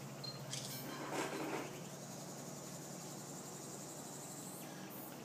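Insects trilling: a steady high-pitched buzz that stops shortly before the end. A short burst of rustling noise about a second in is the loudest moment.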